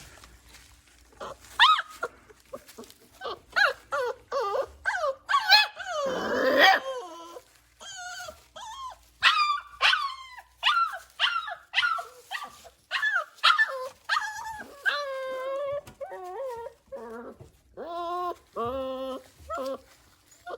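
Boerboel puppies whining and yelping in a rapid string of short, high cries. Near the end the cries stretch into longer, drawn-out whines.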